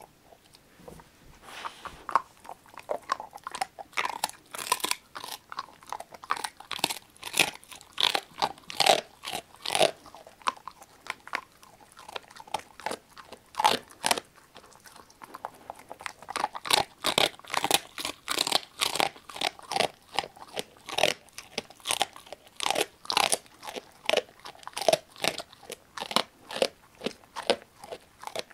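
Labrador retriever mix dog chewing a duck neck treat, its teeth cracking through the bone in a long run of sharp crunches, several a second.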